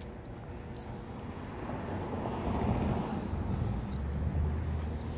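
A motor vehicle growing louder as it approaches, a rising rush with a low steady engine hum coming in about four seconds in.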